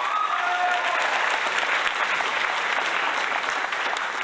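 Crowd applause, a dense steady clapping, with a short whistle at the start.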